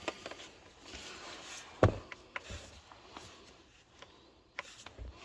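A few scattered knocks and clicks of tools and copper pipe being handled, the clearest about two seconds in; the press tool's motor is not running.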